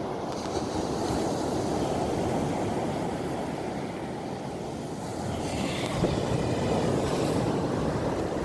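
Steady outdoor rushing noise of wind on the microphone, with a louder swell of hiss about five seconds in.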